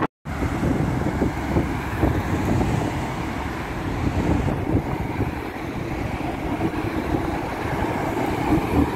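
Street vehicle traffic: a steady low rumble with a mid-pitched hum, after a split-second gap at the very start.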